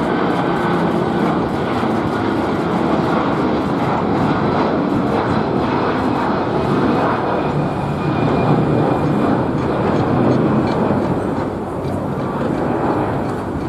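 Airbus A330 twin-engine jet airliner climbing out after takeoff at takeoff power: a loud, steady engine rumble that eases slightly near the end.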